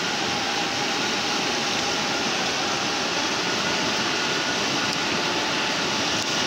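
Fast, muddy river rushing through rapids: a steady, loud rush of water.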